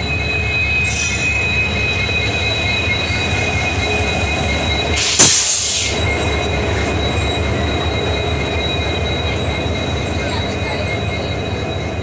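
Coaches of an express train rolling slowly past a platform as it pulls into the station. There is a steady low rumble and a constant high squeal from the wheels under braking. A short loud burst of hiss comes about five seconds in.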